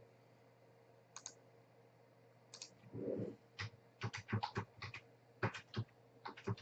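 Typing on a computer keyboard. A few single key clicks come first, then a quick run of keystrokes, several a second, from about halfway through.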